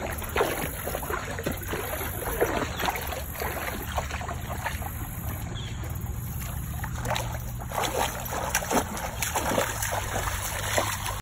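Water splashing and sloshing as a large dog swims and then wades through shallow lake water, in irregular splashes that come more often toward the end, over a steady low rumble.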